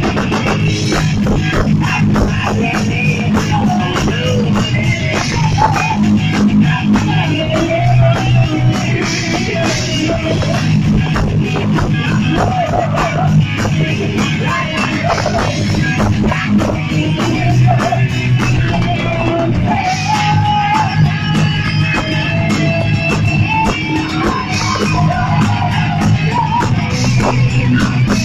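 Heavy metal band playing live: a woman singing over electric guitars and a drum kit with dense, rapid drum hits.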